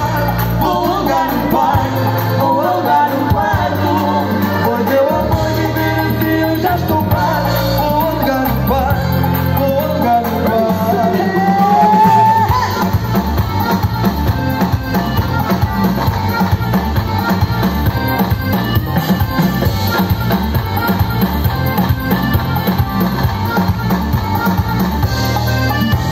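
Live band playing a song through the stage loudspeakers, with several singers. About ten seconds in, a voice holds a long rising note, and after it the band carries on with a steady, quick beat.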